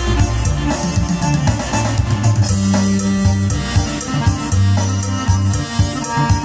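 Yamaha PSR-2100 arranger keyboard played live: a melody over its automatic accompaniment, with sustained bass notes and a steady percussion beat.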